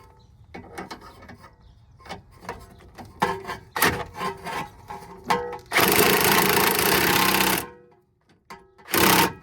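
Power impact wrench tightening a new tie-rod nut: metal clicks and knocks as the tool is fitted, then a loud run of rapid hammering for about two seconds that cuts off sharply, and a short second burst near the end.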